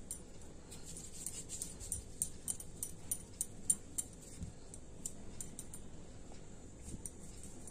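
Light, irregular high clicks and clinks of bangles on the wrist as the hands roll a small ball of dough between the palms, busiest in the first half and sparser after.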